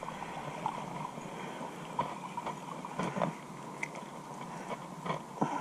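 Faint, irregular clicks and knocks over a low steady hiss, with a faint thin steady tone underneath.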